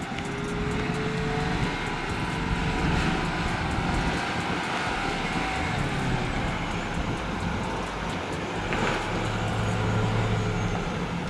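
Land Rover Defender's 3-litre turbo petrol engine running at low revs as the vehicle crawls up a rocky slope in low range, with a steady rush of wind over it.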